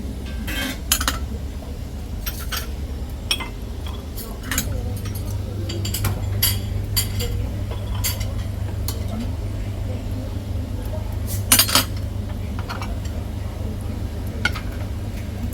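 Serving utensils and china plates clinking at a breakfast buffet: scattered sharp clinks, a louder cluster about eleven seconds in, over a steady low hum.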